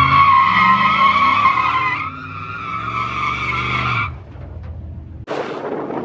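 Pickup truck's tyres squealing in a burnout, a steady high squeal over the engine revving up, cutting off about four seconds in. Near the end, wind buffets the microphone from a moving vehicle.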